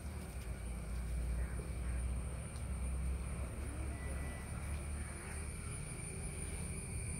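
Outdoor ambience: a steady low rumble that swells a little in the middle, under a faint, steady high-pitched whine.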